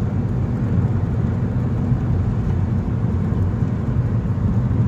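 Car driving through a road tunnel, heard from inside the cabin: a steady low rumble of engine and tyre noise.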